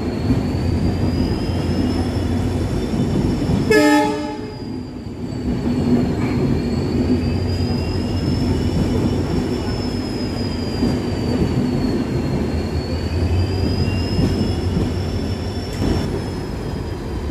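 Passenger train coaches rolling past along a station platform, a steady rumble of wheels on rail, with a high whine that slowly rises and falls. A short, loud blast of the train horn sounds about four seconds in.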